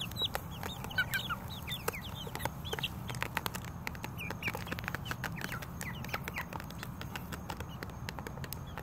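Six-week-old juvenile chickens peeping over and over in short falling chirps as they crowd a plastic bowl of lettuce, with many sharp taps of beaks pecking at the bowl.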